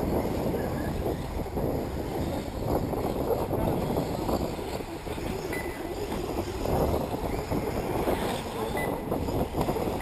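Wind rumbling on the microphone over the faint running of electric 1/8-scale RC off-road buggies on the track.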